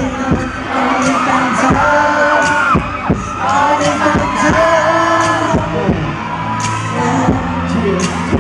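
Pop song playing loudly, with male voices singing over a steady drum beat.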